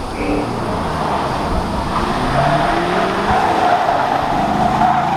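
Holden Caprice sedan driven hard on an autocross course: the engine runs under load while the tyres squeal through a turn. The squeal starts about two seconds in, grows louder and stops near the end.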